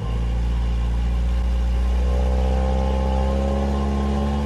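Car engine sound effect: a steady low engine rumble that starts suddenly, with a higher engine tone that comes in about two seconds in and rises slightly.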